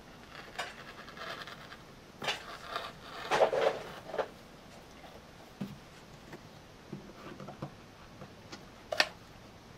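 Sheet vinyl being handled and worked by hand: scattered scrapes, rubs and light ticks, with a longer rustling stretch a couple of seconds in and a sharp click near the end.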